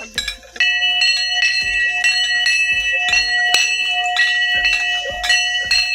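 Hindu temple bell struck over and over, about two strokes a second, each stroke ringing on into the next.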